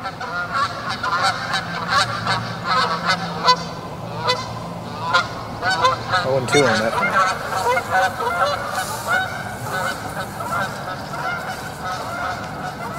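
A pair of geese honking over and over as they fly in, many short calls in quick succession.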